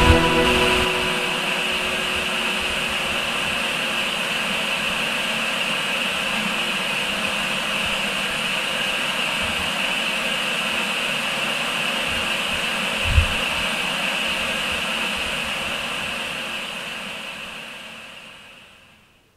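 Steady static hiss, like the noise of an untuned TV, with one brief low thump about two-thirds of the way through; the hiss fades out over the last few seconds.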